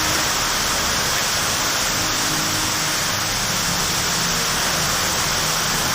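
Heavy rain pouring steadily in strong wind.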